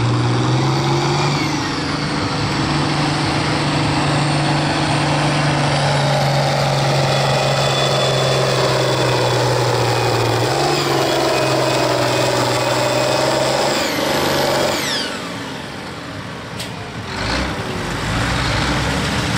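Hot stock pulling tractor's turbocharged diesel engine running hard at a steady pitch under load, then coming off throttle after about fourteen seconds as a high turbo whine falls away. A low rumble follows and engine sound picks up again near the end.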